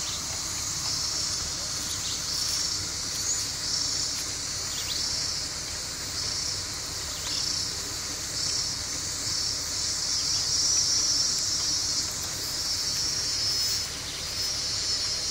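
Insects buzzing in a steady high-pitched chorus, with a pulsed call repeating a little more than once a second.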